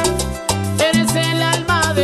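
Latin tropical dance music in salsa style: a bass line changing note about every half second under bright melodic lines.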